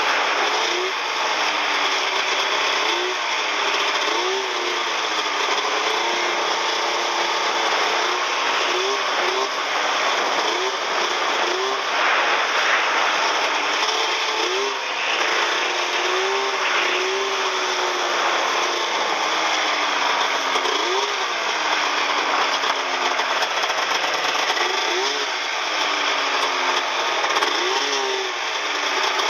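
Snowmobile engine running as the machine rides through snow, its pitch rising and falling again and again as the throttle is opened and eased.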